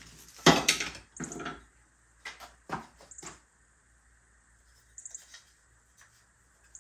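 Wooden shims being handled and pushed into place under a cabinet: a couple of knocks near the start, then several short taps and scrapes with quiet gaps between.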